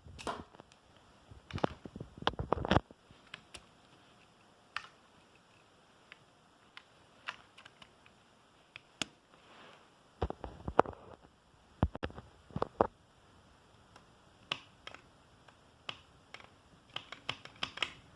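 LEGO plastic pieces being handled: irregular sharp clicks and knocks, coming in clusters near the start, midway and near the end.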